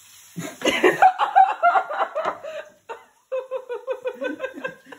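Hearty laughter in bursts, ending in a run of quick ha-ha pulses about six a second. The frying pan's sizzle fades in the first second.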